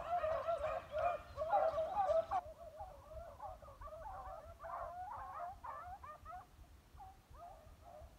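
A pack of beagles baying, several voices overlapping as the hounds run a scent trail. The cry is loudest for the first couple of seconds, then carries on more softly.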